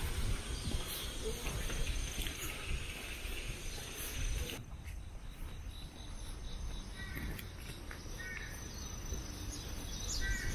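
Outdoor woodland ambience: a steady high insect chirring over a low rumble. About halfway through, the background changes abruptly, and a few short chirps follow.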